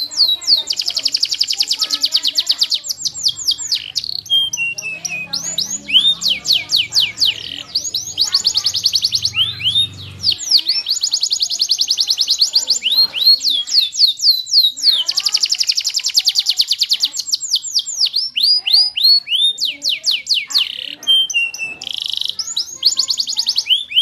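Domestic canary singing: a long, high-pitched song made of fast trills, each a run of quickly repeated notes, one run after another with only brief breaks.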